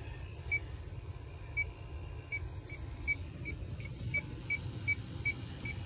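Inficon D-TEK 3 refrigerant leak detector beeping in manual mode, short high beeps about once a second at first, then about three a second from roughly two seconds in. A low, steady rumble runs underneath.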